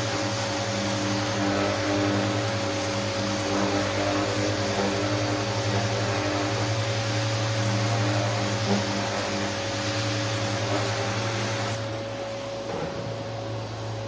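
An electric power tool's motor runs steadily, with rushing air and a steady whine. Near the end the rushing drops away while the whine holds, and the whine then begins to fall as the motor winds down.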